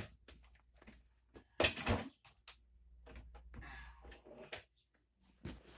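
Scattered clicks and knocks of things being moved and handled, the loudest knocks about one and a half to two seconds in, with a brief rustle around three to four seconds.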